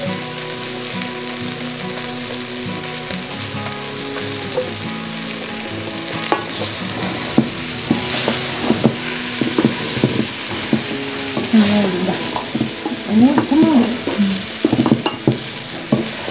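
Chicken pieces sizzling in a hot aluminium pan while being stirred with a wooden spoon. From about six seconds in, the spoon scrapes and knocks against the pan in quick, uneven strokes.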